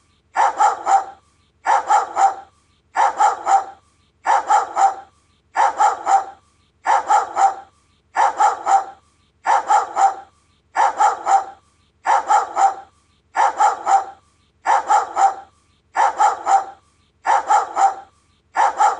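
Doberman barking in short bursts of two or three barks. The bursts repeat at an even pace, about three every four seconds, with brief silences between them.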